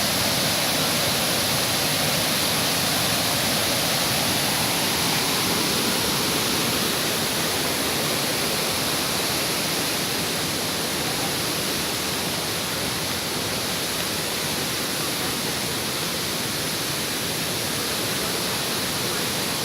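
Waterfall water rushing in a steady, unbroken wash of noise.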